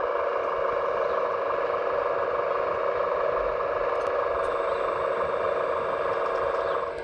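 Hydraulic pump of an RC model Liebherr A918 wheeled excavator running, a steady hum with no change in pitch while the boom moves; it drops in level right at the end.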